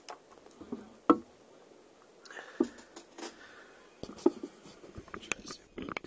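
Scattered light clicks and taps of small tools being handled and set down on a hard work surface, the sharpest about a second in, a few more later.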